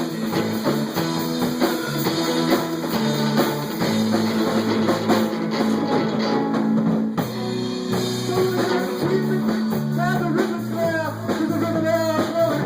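Live rock band playing an instrumental stretch, with guitar and drums over sustained bass notes; a wavering melodic line comes in over the last few seconds.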